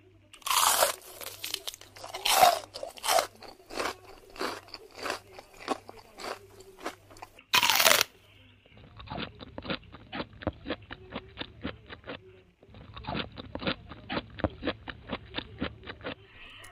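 Crisp fried puri shells of panipuri crunching and being chewed by several people, a close run of crunches with one loud burst about eight seconds in. In the second half the chewing settles into a steady rhythm of about three or four crunches a second.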